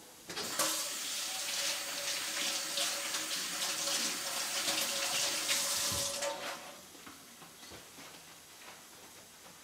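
Water running steadily for about six seconds, a hissing rush with a faint steady tone under it, stopping abruptly.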